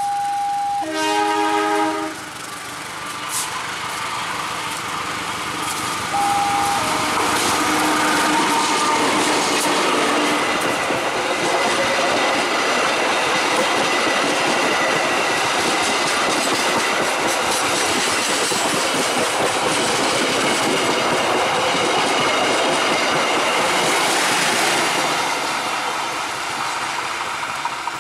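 A steady warning tone, then a short train horn blast about a second in. After that, a KAI diesel locomotive and its economy coaches pass close by: a loud running rumble with wheels clattering over the rail joints, which fades near the end as the train moves away.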